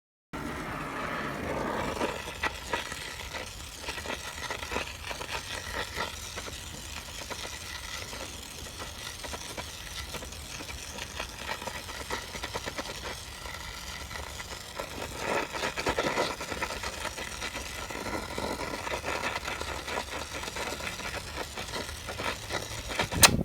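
Gas torch burning steadily, heating the aluminium transmission case for brazing with Super Alloy 5 rod.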